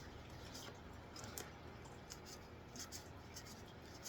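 Faint rustles and flicks of Magic: The Gathering cards being handled and slid past one another, in short scrapes spaced irregularly.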